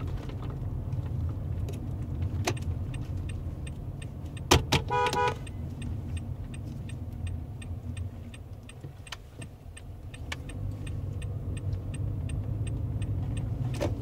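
Car engine and road noise heard from inside the cabin while driving, easing off in the middle and building again near the end. About four and a half seconds in comes a short pitched beep, and a faint regular ticking runs underneath.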